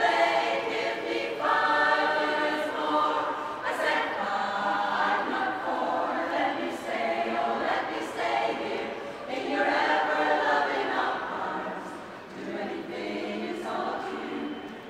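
Women's choir singing together.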